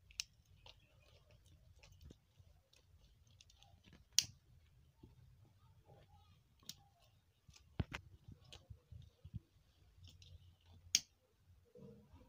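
Quiet handling of a woven plastic mat, with a few sharp clicks spread several seconds apart, the loudest about 4 and 11 seconds in.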